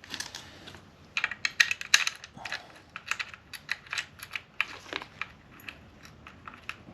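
Irregular light clicks and taps of a hand tool and metal hardware as a bolt is threaded and tightened into a rivnut insert in a motorcycle swingarm.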